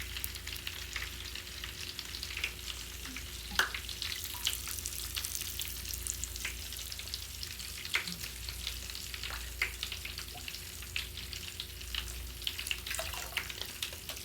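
Mr. Bubble Magic Bath Crackles crackling and popping in bath water: a dense, irregular fizz of tiny pops, with a few sharper single pops standing out, about a third of the way in and twice more in the middle.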